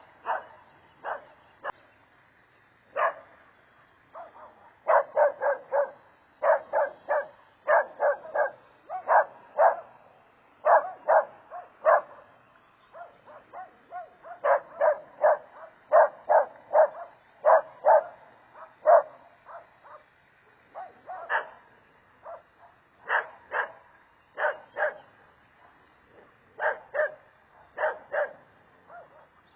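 A dog barking over and over: short sharp barks in quick runs of several at a time, broken by brief pauses.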